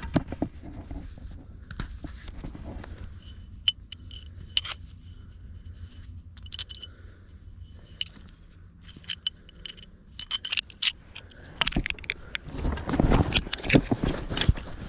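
Broken china shards clinking and scraping together, with short high ringing chinks. About twelve seconds in, footsteps start crunching on gravel.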